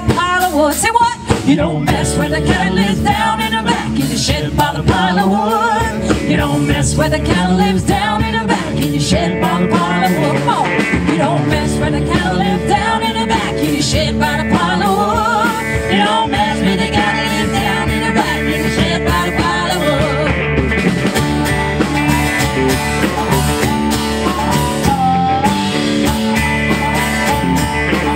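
A live band playing a rock-and-roll blues number: a woman singing over acoustic guitar, electric guitar and bass. The singing drops out about three-quarters of the way through, leaving the band playing on.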